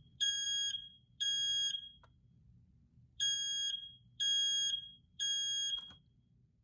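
First Alert 0827 ionization smoke alarm sounding its test signal: loud beeps on one high tone, each about half a second long, in the temporal-three pattern. Two beeps end one group, then after a pause come three more about a second apart, and a short knock follows the last beep.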